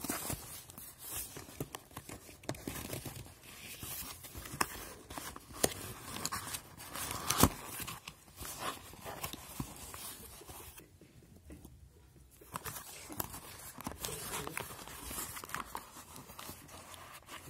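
Cardboard shipping box being torn open by hand: irregular tearing, scraping and crackling of the flaps, with one sharp snap about halfway through.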